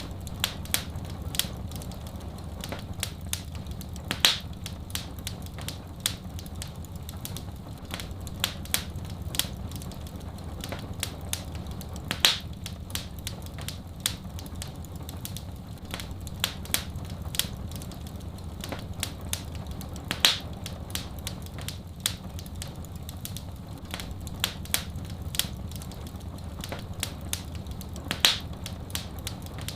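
Wood fire crackling in a fireplace: a dense run of small irregular pops and snaps over a steady low rumble, with a louder pop about every eight seconds.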